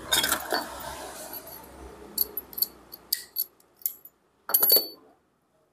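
Small metal parts and the frame of a disassembled Daiwa Tatula baitcasting reel clicking and clinking as they are handled, over a scratchy rustle in the first few seconds. The loudest is a short cluster of ringing metallic clinks a little after four seconds in.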